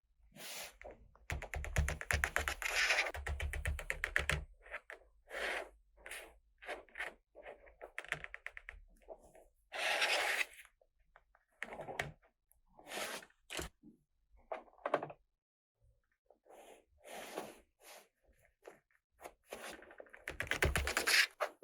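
Small plastic toy pieces and packaging being handled: a string of taps, knocks and clicks, with denser bursts of rapid clicking or rattling near the start, about ten seconds in and near the end.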